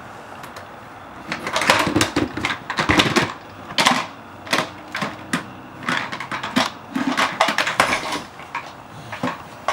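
Hard plastic toys clattering and knocking against each other and a plastic toy bin as they are rummaged through and pulled out, in quick irregular bursts of clicks that start about a second in and stop near the end.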